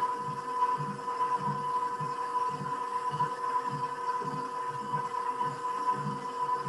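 KitchenAid stand mixer running on a low speed: a steady motor whine with a low throb about twice a second as the beater goes round the bowl.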